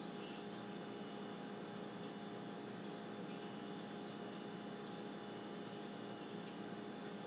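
Steady electrical hum with faint hiss underneath: the recording's background noise, with nothing else standing out.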